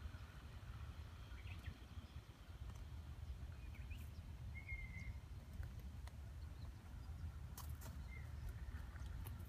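Quiet outdoor garden ambience: a low steady rumble on the microphone, with a couple of short bird chirps, one about halfway through and one near the end, and a few faint sharp clicks.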